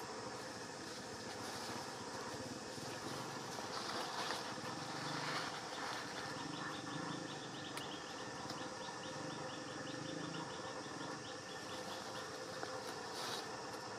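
Outdoor ambience: a steady background hiss, joined about six seconds in by a rapid, high-pitched ticking call that runs on to the end.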